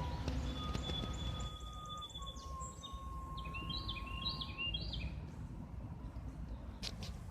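Unexplained sounds from a sewer: long steady whistle-like notes, then a run of about a dozen short chirps, over a low rumbling background.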